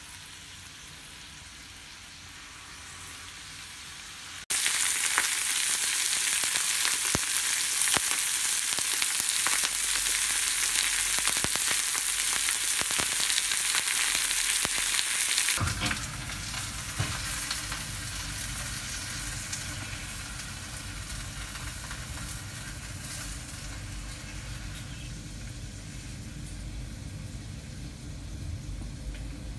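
Food frying in a pan: a loud, even sizzling hiss with scattered clicks that starts abruptly a few seconds in. About halfway through it gives way suddenly to a quieter, steadier, lower noise.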